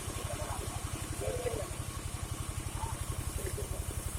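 Engine of a timber-sawing machine running steadily at idle, a rapid, even thudding with no rise or fall; faint voices in the background.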